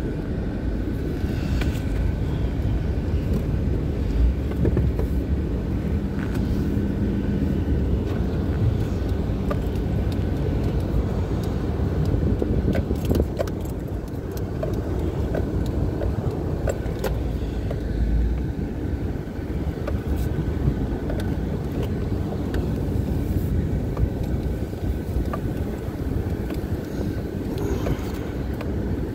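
Off-road vehicle driving over rough grassy ground, heard from inside the cab: a steady low rumble of engine and tyres with scattered knocks and rattles from the body jolting over bumps.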